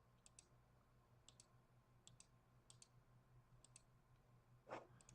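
Faint computer mouse clicks, each a quick press-and-release pair, coming about once a second over a low steady hum, with a brief soft noise near the end.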